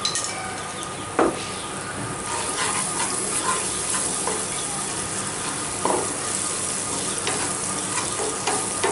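Sliced onions and spice paste sizzling in hot oil in a frying pan, stirred with a wooden spatula that knocks against the pan a few times, loudest about a second in.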